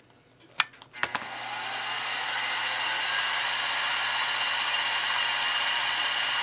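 Milling machine spindle switched on with a click about half a second in, spinning up over about a second and then running at a steady speed with a steady whine, while a small drill bit starts cutting into brass bar stock.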